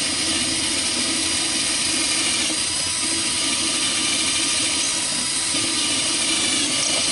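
Cordless drill running steadily at full speed, boring a bolt hole into the camper's side wall to mount a TV bracket.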